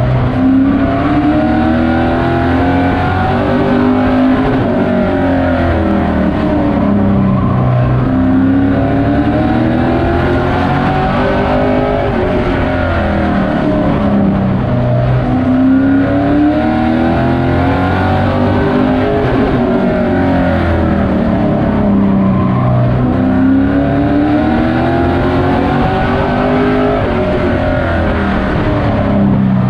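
Race truck's engine heard from inside the cab, running hard under load. It repeatedly climbs in pitch on the throttle down each straight and drops off as the driver lifts for each turn of the short oval.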